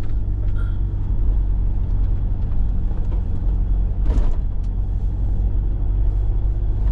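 4x4's engine and road noise as a steady low drone, heard from inside the cabin while driving. A brief higher sound cuts in about four seconds in.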